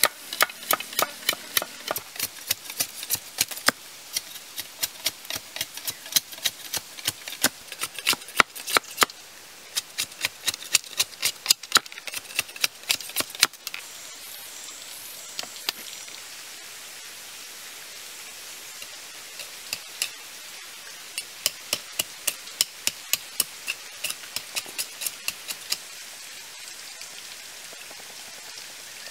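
A knife chopping and tapping into bamboo: quick, sharp knocks several times a second. They thin out about halfway through and come back in a run of small taps near the end.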